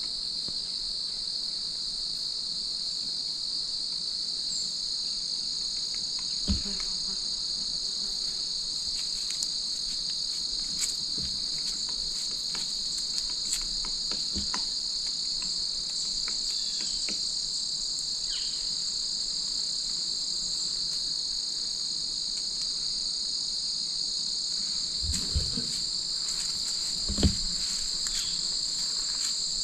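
Steady, unbroken high-pitched chorus of insects such as crickets, with a few short knocks and taps, the clearest one near the end.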